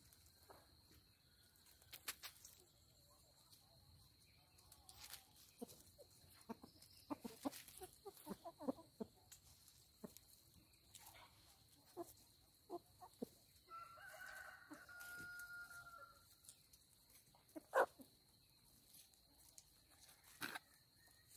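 A rooster crows once, a held call of about two seconds a little past the middle. Scattered soft clicks and rustles run through it, with one sharp click shortly after the crow as the loudest sound.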